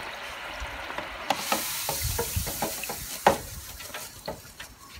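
Chips deep-frying in oil at 170 °C in an electric deep fat fryer on their first fry: a steady sizzle with scattered crackles. The hiss gets brighter about a second in as the wire basket is lifted out of the oil, and there is one sharp click of metal about three seconds in.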